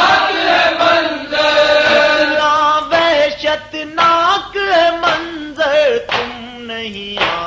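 Nauha, a mournful Urdu lament, chanted by male voices without instruments: long drawn-out notes that bend and slide in pitch. About six seconds in, it drops to a lower, quieter held note.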